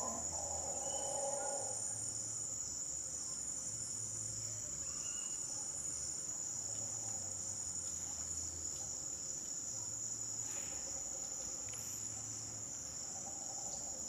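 A steady, high-pitched drone of an insect chorus in tropical swamp forest, unbroken throughout. A male mantled howler monkey's howl tails off in the first second or two.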